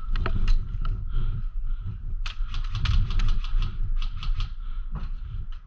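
Airsoft gunfire: a run of sharp, irregular cracks and snaps, most closely packed from about two seconds in to about four and a half, over a low rumble.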